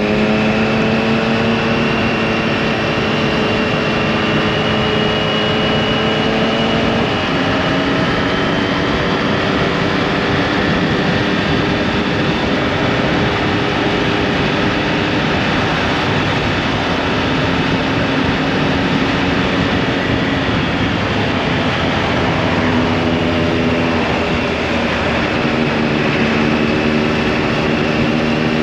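Triumph motorcycle engine running at cruising speed, its pitch slowly rising and falling as the speed changes, under a steady rush of wind noise.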